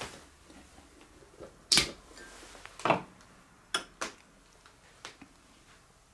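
Plastic blender lid pulled off a glass blender jar and set down on a wooden tabletop, and a glass mug handled: about five short, sharp clacks and knocks, the loudest two in the first half.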